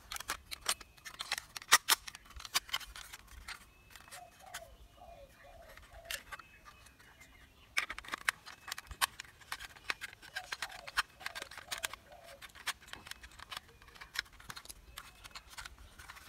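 Hard plastic toy parts clicking and knocking as the shell pieces of a toy auto rickshaw are handled and pressed together by hand: irregular sharp clicks, thinning out for a few seconds in the middle.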